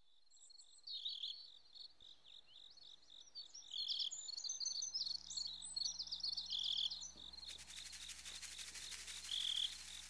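Small birds chirping in quick, high twitters over a steady, evenly repeating insect chirp.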